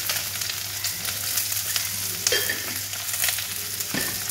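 Chopped onions, curry leaves, dried red chillies and garlic sizzling in hot oil in a stainless steel kadai, a steady crackling hiss. A brief knock sounds near the end.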